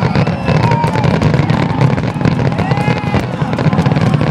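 Fireworks finale barrage: a rapid, continuous run of bangs and crackles, with several drawn-out rising tones over the top.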